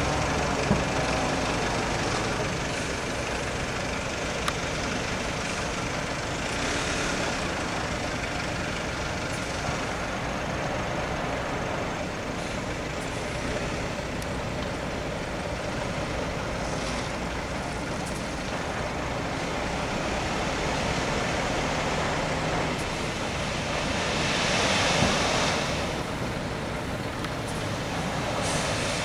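MAN TGA 18.530 tractor unit's straight-six diesel running with steady heavy-truck engine and road noise. Two longer swells of hiss rise over it, about seven seconds in and again near the end.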